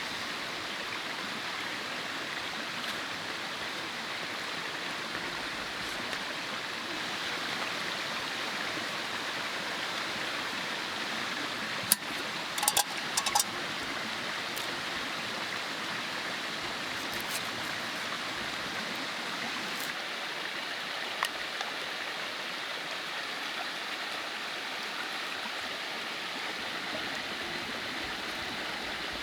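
Mountain stream flowing steadily, an even rush of water. A few short sharp clicks stand out about halfway through, and one more a little later.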